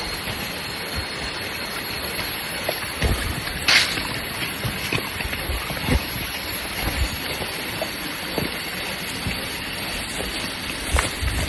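Steady rushing water of a stream or waterfall, with a few small knocks.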